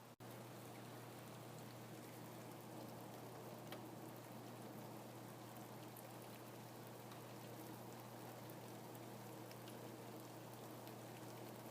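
Faint steady rain, a soft even hiss dotted with scattered ticks of single drops, over a low steady hum. The sound cuts out for a split second right at the start.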